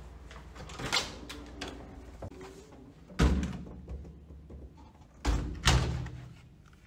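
Heavy hotel room door being opened and shut: a sharp click about a second in, then three loud thuds, the last two close together.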